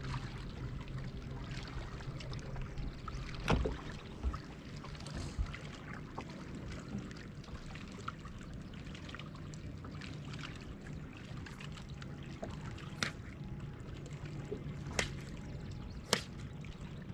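Small waves lapping and trickling against the hull of a bass boat, with a few sharp clicks about three seconds in and three more in the second half.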